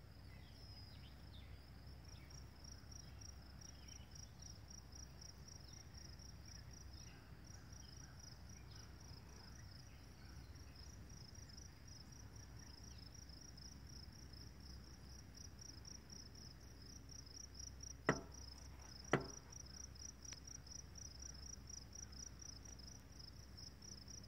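Faint chorus of crickets: a steady, high-pitched chirping in an even, rapid pulse. Two sharp clicks about a second apart come about three quarters of the way through and are the loudest sounds.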